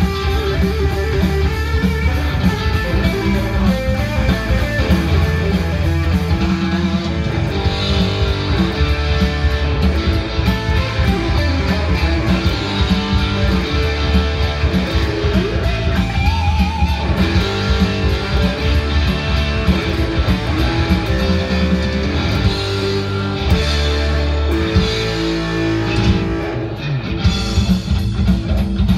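Electric guitar played continuously in a rock style, with a low bass line sustained underneath.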